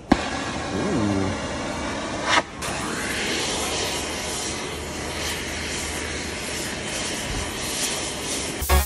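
Oxy-acetylene torch hissing steadily as it heats a truck suspension control arm, from about two and a half seconds in. A click and a short voice come before it, and music starts near the end.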